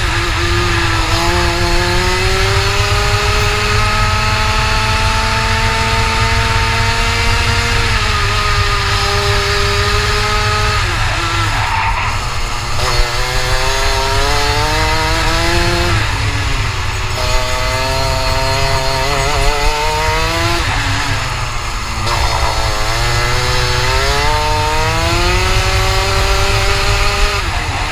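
Rotax Max kart's 125 cc single-cylinder two-stroke engine heard onboard at speed, its pitch climbing steadily for several seconds along the straights and dropping sharply off the throttle into the corners, several times over.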